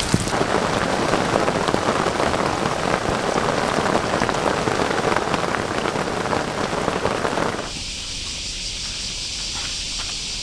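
Rain falling steadily. About seven and a half seconds in it cuts off suddenly, leaving a quieter, steady high hiss.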